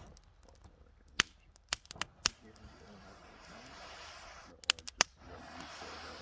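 A series of sharp pops: four spread over about a second, starting a second in, then a quick cluster of three or four near the fifth second, over a steady faint hiss.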